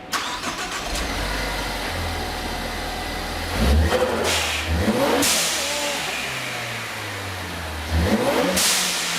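Turbocharged 2.0-litre EcoBoost four-cylinder of a 2013 Ford Focus ST, fitted with a new Injen cold-air intake and Boomba blow-off valve, starts and idles, then is revved twice. Each rev is followed by a loud rushing hiss as the throttle closes, the blow-off valve venting.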